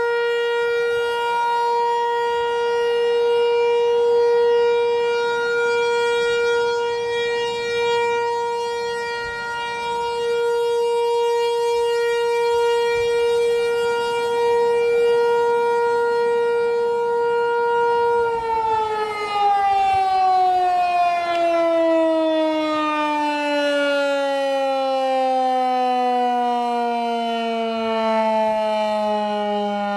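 ASC T-128 outdoor warning siren sounding the steady single tone of a Full Alert cycle, then, a little past halfway, cutting power and winding down, its pitch falling smoothly and steadily.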